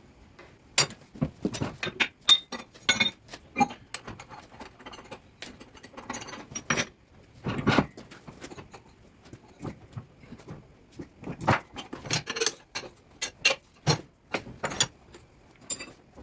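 Irregular sharp metal clanks and clinks, some ringing briefly, from steel tooling and bar being handled and worked at a blacksmith's fly press.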